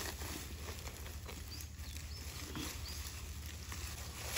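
Komodo dragons feeding on a goat carcass: soft scuffing, crunching and tearing as they pull at it over gravel and dry leaves.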